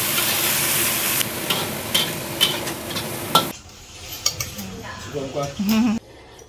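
Food sizzling in a frying pan while it is stirred, with several sharp clicks and scrapes of the utensil against the pan. The sizzle cuts off suddenly about three and a half seconds in, and only fainter, scattered kitchen clinks follow.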